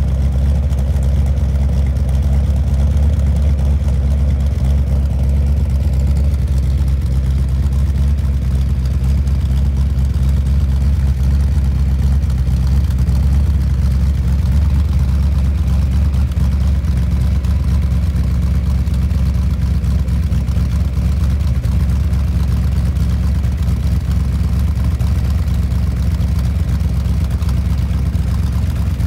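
1964 Ford Galaxie's engine idling steadily, a low, even exhaust note with no revving.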